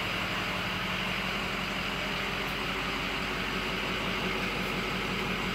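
Electric shop fan running with a steady hum and airy hiss.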